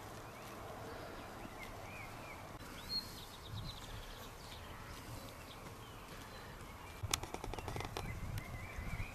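Open-field ambience with small birds chirping intermittently. From about seven seconds in comes a close run of crisp clicks and soft thuds: Zwartbles sheep tearing and chewing grass right by the microphone.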